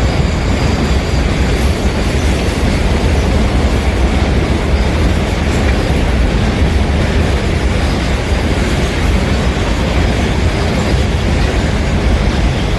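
Freight train rolling past at close range: a steady, loud rumble of wagon wheels on the rails with some clickety-clack.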